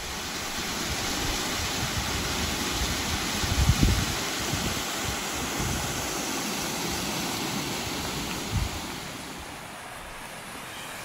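Mountain waterfall rushing steadily as it cascades over rocks, with a few low wind buffets on the microphone; the rush drops to a quieter level near the end.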